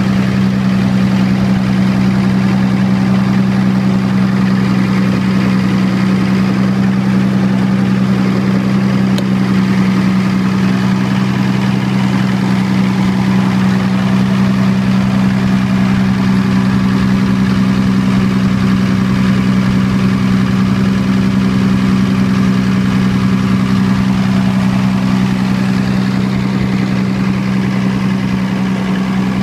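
Diesel generator engine running steadily with an even low hum, fed a mix of diesel and pipeline natural gas by a dual-fuel fumigation system.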